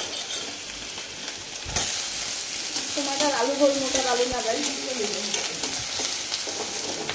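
Maggi noodles frying in a steel wok on a gas stove, a steady sizzle with a ladle stirring. The sizzle gets louder about two seconds in, as chopped white pieces are tipped into the hot wok from a plate.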